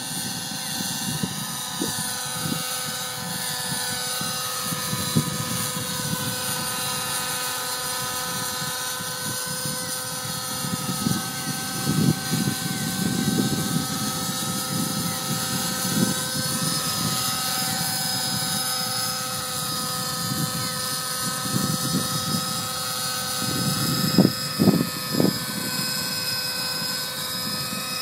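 Helicopter hovering, most likely a radio-controlled model: a steady high whine from motor and rotor that slowly drifts up and down in pitch. Wind gusts on the microphone underneath, with a few sharp bumps near the end.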